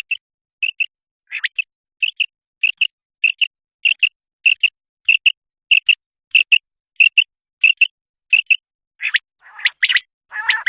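Common quail calling, as used in a spring hunting lure: short, sharp double notes repeated evenly about one and a half times a second, then a louder, harsher call near the end.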